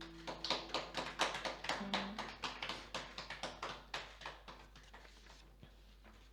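Small audience applauding at the end of a song, a quick patter of claps that thins out and fades away after about five seconds, while the last guitar chord dies away under it.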